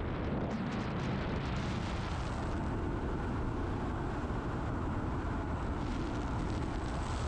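Steady road and wind noise inside a moving car with the windows open.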